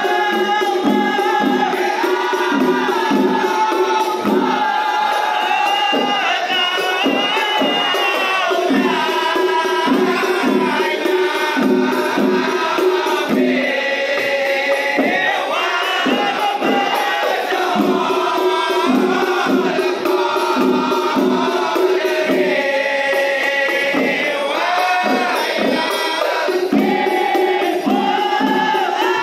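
A group of men singing together while beating rebana frame drums. The drums keep a steady beat of about two strokes a second, in spells that drop away and return while the voices carry on.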